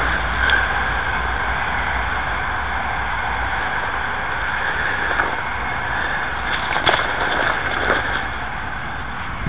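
Steady rush of road traffic, with a low rumble in the first few seconds that fades out. A few short handling clicks about seven and eight seconds in.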